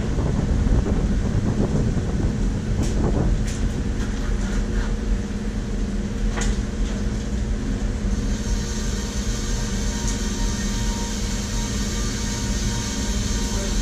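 Combine harvester engine running steadily, with a few knocks and rattles in the first half. A high whine joins about eight seconds in.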